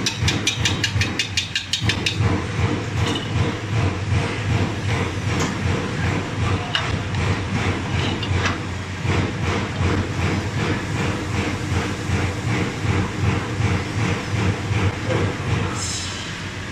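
Machinery running with a steady low hum and a fast, even clatter. A quicker, higher run of ticks comes in the first two seconds.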